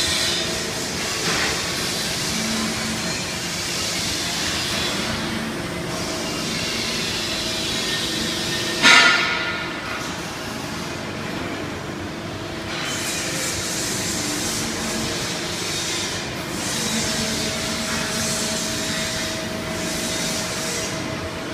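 Industrial workshop machinery running with a steady hum and hiss and a faint whine, broken by one sharp bang about nine seconds in.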